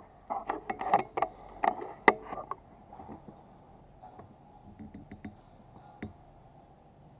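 Clicks and knocks of a PCP air rifle being handled and reloaded between shots: a quick run of sharp clicks in the first two and a half seconds, the loudest about two seconds in, then a few faint ticks.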